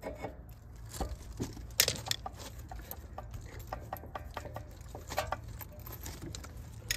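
New brake pad being worked by hand into a Chevy Silverado's front caliper bracket, a tight fit. Irregular light clicks and scrapes of the metal backing plate and clips against the bracket, with one sharper click a little under two seconds in.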